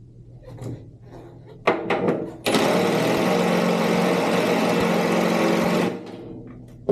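Impact driver hammering on a bathtub drain: a couple of short bursts, then about three and a half seconds of steady rapid impacting that cuts off suddenly. The drain is very tight and turns only slowly.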